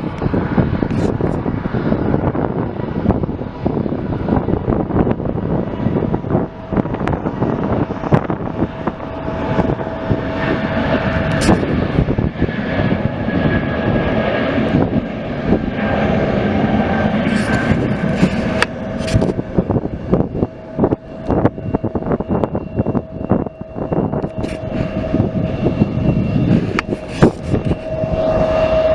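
Jet airplane engines running: a steady rushing noise with high whining tones held over it.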